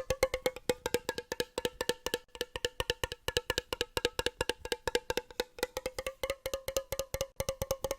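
Fast, even tapping on a hard, resonant object, about eight to ten taps a second, each tap ringing with the same clear note.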